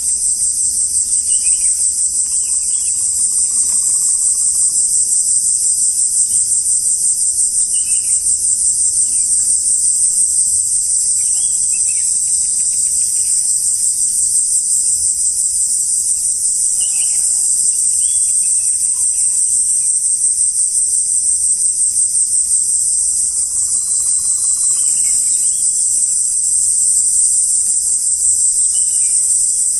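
A loud, steady chorus of insects: a dense, high-pitched buzz with a fast pulse, unbroken throughout. Faint short chirps sound now and then beneath it.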